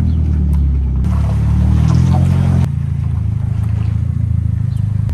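Car engine idling, a steady deep note; the sound changes abruptly about a second in and again near the middle.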